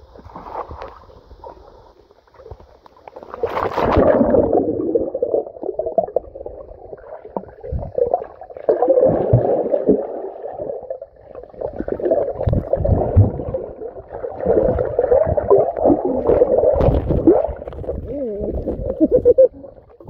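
Muffled gurgling and sloshing of river water heard through a camera held underwater. It comes in surges from about three seconds in, with dull low knocks.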